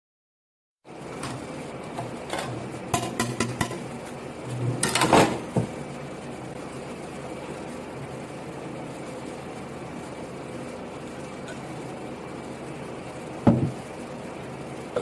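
Cutlery clicking and scraping against a plate during a meal: a quick run of clicks, a louder scrape about five seconds in and a single knock near the end, over a steady room hum. The sound cuts in about a second in.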